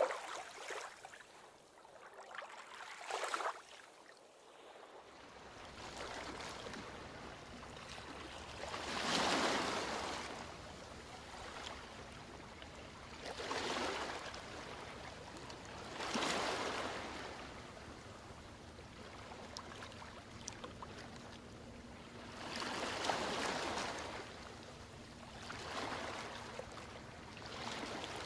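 Ocean waves breaking and washing onto a beach, the surf swelling and fading in about six surges a few seconds apart.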